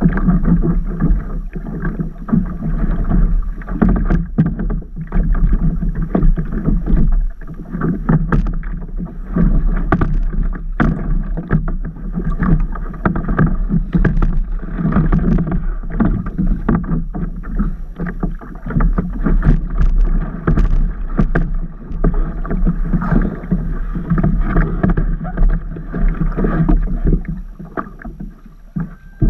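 Sea water splashing and sloshing against a paddleboard right at the microphone: a dense, continuous wash of small splashes that eases off at the very end.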